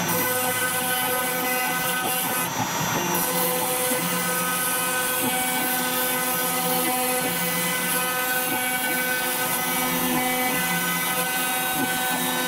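CNC router spindle running at about 20,000 rpm with a 2 mm diamond-cut carbide end mill, milling 2 mm FR4 glass-fibre board: a steady whine of several tones over the hiss of the dust extraction. Lower stepper-motor tones start, stop and change pitch as the axes move.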